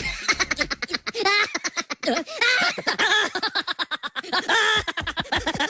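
Several people laughing and giggling, with bits of chatter mixed in.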